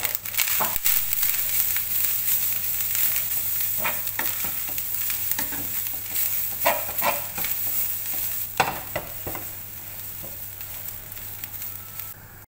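A wooden spatula stirs and scrapes grated coconut around a dry nonstick frying pan, with a few louder knocks against the pan, over a steady light hiss: the coconut is being dry-roasted without ghee. The sound cuts off abruptly near the end.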